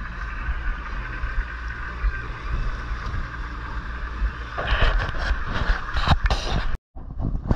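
Boat under way while trolling: an outboard motor running, with wind buffeting the microphone and the wake rushing behind the stern. About two-thirds in the rushing grows louder and rougher, then the sound cuts off abruptly for an instant.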